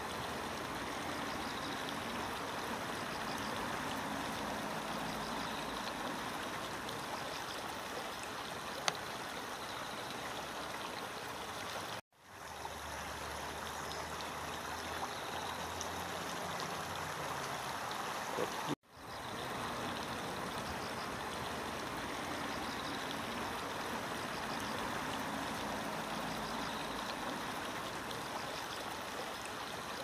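Steady rushing of flowing river water. It cuts out suddenly twice, around twelve and nineteen seconds in, and fades back in each time.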